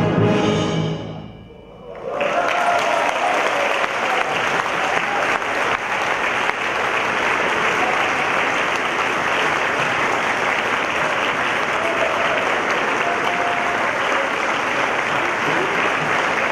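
Symphony orchestra with solo trumpet ends on a final chord that dies away in the first second and a half. About two seconds in, a concert-hall audience breaks into steady, sustained applause.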